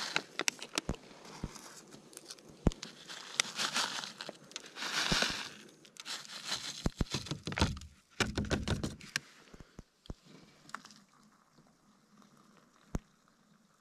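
A food pouch crinkling and rustling as dry cereal mix is shaken out of it into a plastic bowl, with scattered sharp clicks and taps. The handling stops after about ten seconds and it goes much quieter, with only an odd click.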